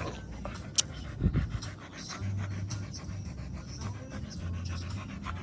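Dog panting rapidly in quick, even breaths, with a sharp click a little under a second in.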